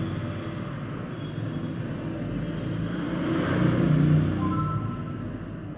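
A vehicle passing by: a low rumbling noise that swells to a peak about three and a half to four seconds in, then fades.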